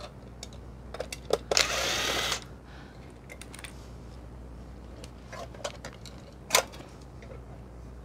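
Cordless drill-driver running for about a second as it backs a screw out of a sheet-metal light housing, followed by scattered clicks and one sharper knock as the loose screws and the metal lid are handled.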